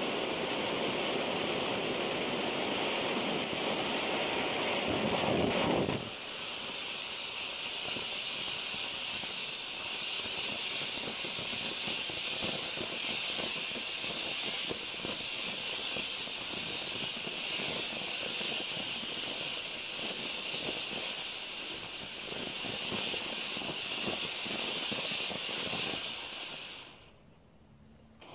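Low-noise firework fountain ('Fountain of Youth') burning with a steady hiss of spraying sparks and a fine crackle. A fuller rushing part of the sound drops away about six seconds in. Near the end the hiss fades out as the fountain burns out.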